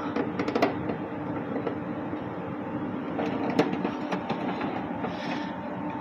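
A screw being backed out of the plastic casing of a Sharp dehumidifier with a screwdriver: a steady mechanical whirr with a few sharp clicks.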